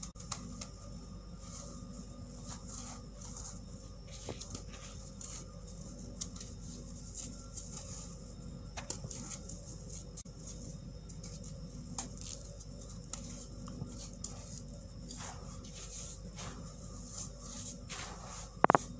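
Dry baking soda powder squeezed, crumbled and pinched by hand, giving soft crunchy crackles and small clicks over a steady low hum, with one louder thud shortly before the end.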